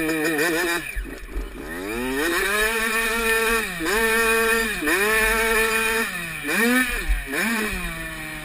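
Motocross dirt bike engine under way, its revs rising and falling repeatedly as the throttle is rolled on and off: a deep drop about a second in, long climbs broken by brief dips, then quicker rev-up-and-drop cycles near the end.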